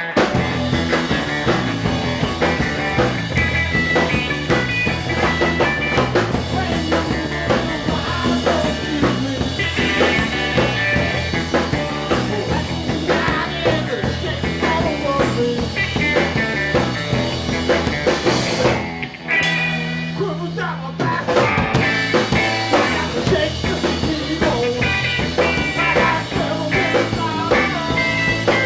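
A live rock band playing, with a drum kit keeping the beat.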